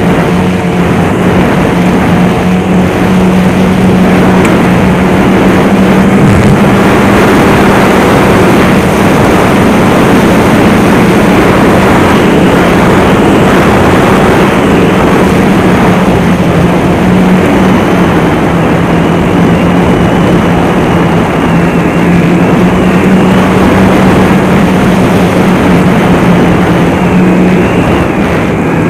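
Snowmobile engine running at a steady cruising speed on a trail: one constant hum with a dense rushing noise under it, loud and even throughout.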